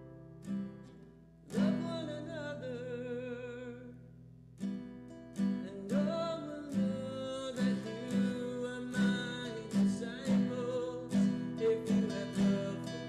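Background music: a plucked guitar pattern in a steady rhythm under a held melody line with vibrato, easing off briefly about a second in and again around four seconds.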